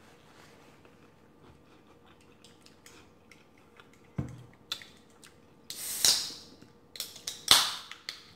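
Handling noises at a table: faint clicks, then a knock about four seconds in. Two loud bursts of rustling or scraping follow, the first about six seconds in and the second near the end.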